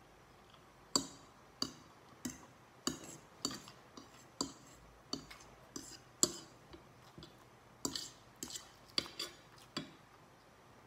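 Metal fork clinking against a plate while gathering up rice noodles: about fifteen short, sharp clinks at an uneven pace, roughly one every half second.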